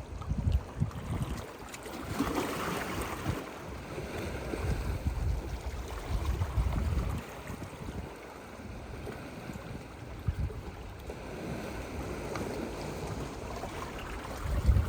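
Sea waves washing in swells, with wind gusting unevenly on the microphone as a low rumble.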